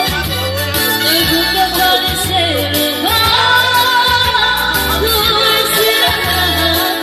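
A young woman singing a slow melody into a handheld microphone, over backing music with a steady repeating bass line.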